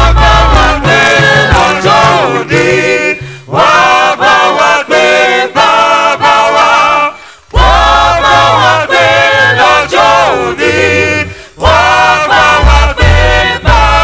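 Church choir of men and women singing a Yoruba hymn over a band with a bass line, in phrases broken by short pauses about every four seconds.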